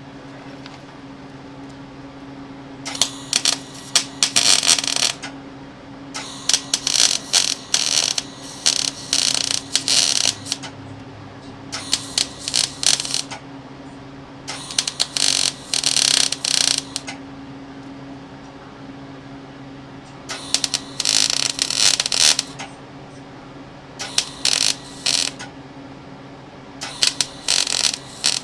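Electric welder tack-welding steel heat-shield tabs onto a catalytic converter: about seven crackling welding bursts, each one to four seconds long, with short pauses between them. A steady low hum runs underneath.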